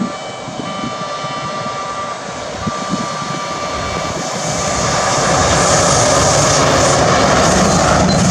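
An EH500 electric locomotive hauling a container freight train approaches and passes close by, its running noise growing much louder from about four to five seconds in as the locomotive and wagons go past. Over the top, a railway warning alarm rings with steady tones, warning of the train.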